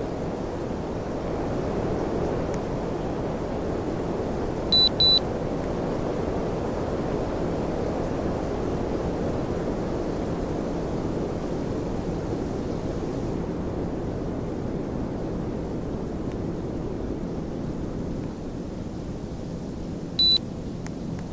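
Air conditioner running with a steady rushing airflow noise and a faint hum. Two short high-pitched beeps sound about five seconds in and a single beep near the end.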